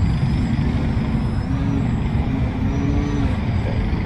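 Small electric RC plane's brushless motor and propeller whining overhead, the pitch swelling and falling twice as the throttle is worked. A loud low rumble underlies it.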